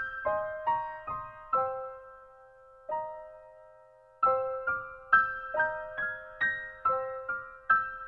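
Background piano music: soft single notes played one after another, each fading away, with a gap of about two seconds in the middle where only one note sounds before the melody resumes.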